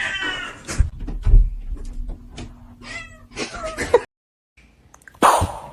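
A cat meowing several times, with a few sharp thumps between the calls. After a short break, a loud noisy burst comes near the end.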